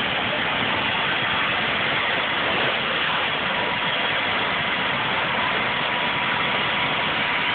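Helicopter engine and rotor running steadily on the ground while powering up before liftoff, a dense unbroken noise with a faint steady whine coming in partway through.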